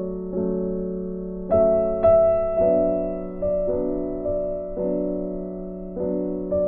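Background music: slow piano-like keyboard chords, each struck and fading, a new one every second or so.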